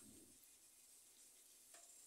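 Near silence: faint steady hiss, with a faint knock at the start and a faint click near the end.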